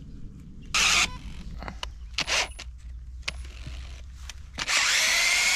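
A few short scraping rustles, then a power drill starts up near the end and runs steadily, boring into the trunk of a tree infested with red palm weevil to treat it.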